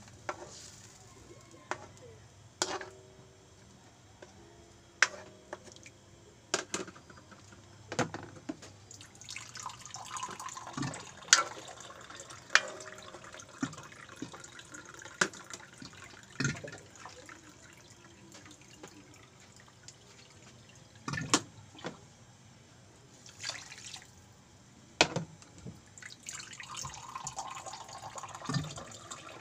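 A metal cooking utensil clinking against a pan of frying or simmering food, about fifteen sharp knocks spread irregularly, over a faint liquid bubbling.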